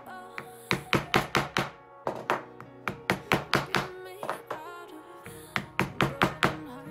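Wooden mallet striking a metal stitching chisel through leather on a stone slab, punching stitch holes: sharp knocks in quick runs of several strikes, with a short pause a little past the middle.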